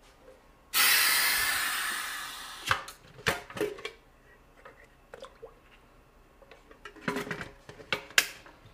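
Pressure pot's air valve hissing as the pot vents, starting suddenly about a second in and fading over about two seconds, followed by metallic clicks and clanks of its lid and clamps being handled, a few near the middle and a cluster near the end.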